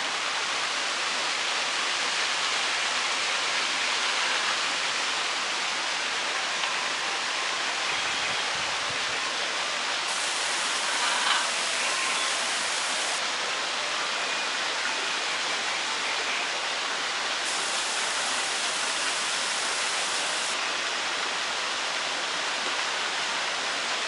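A steady rushing hiss, even and unbroken, with a faint brief sound about eleven seconds in.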